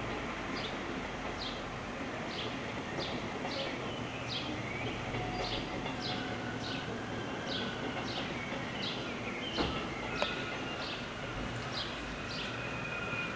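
A bird repeating a short falling chirp about twice a second, over the steady rumble of an FS E656 electric locomotive and its coaches running through the station yard. Two sharp clicks about ten seconds in.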